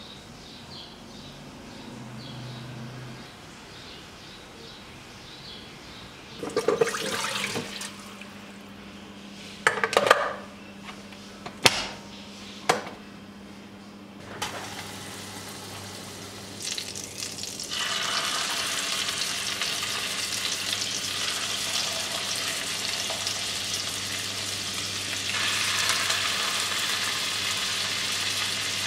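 A few sharp clicks and knocks, then toothpick-skewered rolls frying in oil in a grill pan. The steady sizzle starts about two-thirds of the way in and gets louder near the end.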